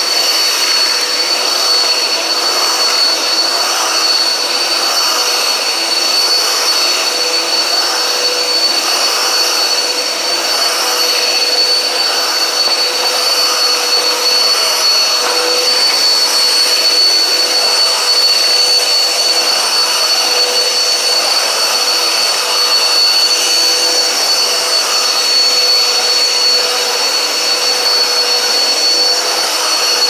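Dirt Devil upright vacuum cleaner running with a steady high whine, its brushroll broken. The sound swells gently about every second or two as it is pushed back and forth over a floor mat.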